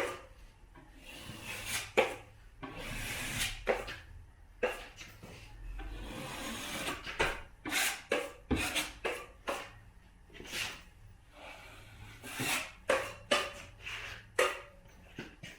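Drywall taping knife scraping setting compound over a drywall joint in repeated short strokes, with a few longer drawn-out scrapes and light knocks of the blade.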